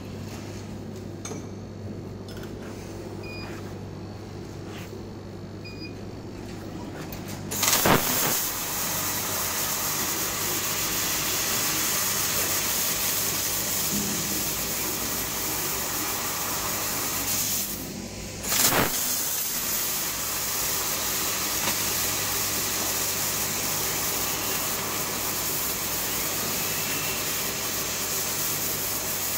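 300W CO2 mixed laser cutter: first a steady low hum with a few faint short beeps, then about a quarter of the way in a loud hiss of assist gas from the cutting head comes on as it cuts 3 mm stainless steel. The hiss stops for about half a second a little past the middle and starts again.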